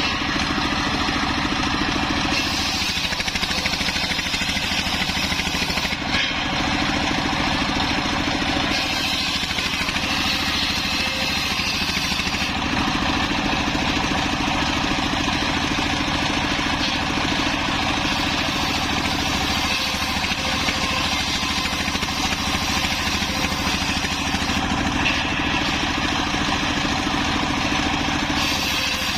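Engine-driven homemade circular sawmill running steadily, its engine and spinning blade making a constant drone.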